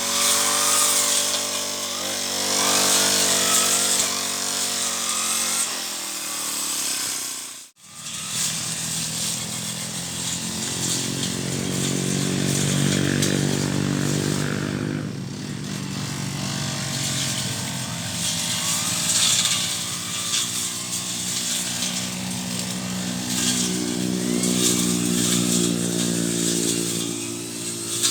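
Brush cutter engine running and cutting weeds, its speed rising and falling as it works. A short break in the sound about eight seconds in.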